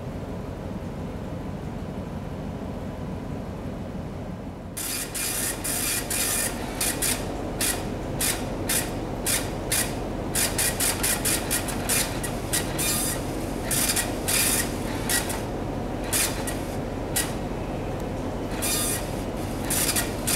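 A printer printing, starting about five seconds in as a quick, irregular run of short hissing passes with brief gaps, over the steady low hum of the ship's engines.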